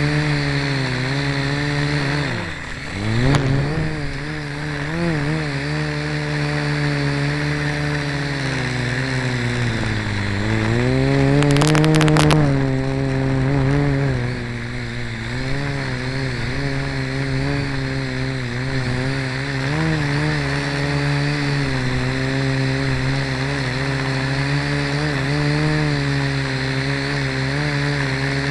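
Blade mQX micro quadcopter's four motors and propellers whining, heard through its onboard keychain camera, the pitch wavering with throttle. The pitch dips sharply about three seconds in, and again around ten seconds in before climbing back up, with a brief burst of crackling at the loudest point.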